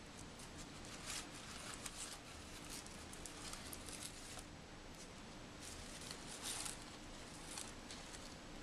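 Tissue paper and a paper gift bag rustling and crinkling in short bursts, again and again, as a West Highland white terrier noses and chews into the bag.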